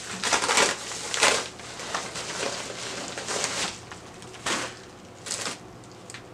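Yellow padded paper mailer being torn open and handled, then a plastic-wrapped item crinkling as it comes out: a series of short rustling, crackling bursts, the loudest in the first second and a half.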